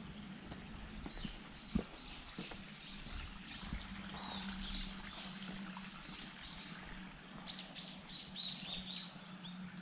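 Small birds chirping in quick runs of short, high notes, in two bouts, over a steady low hum. A single sharp knock sounds just under two seconds in.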